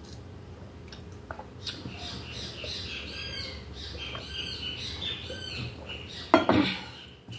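A bird squawking in short calls, about one a second. Near the end comes one loud, sudden thump.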